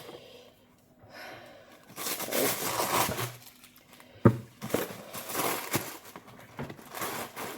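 Packaging rustling and crinkling in several stretches as a box of paperback books is unpacked, with a sharp knock about four seconds in.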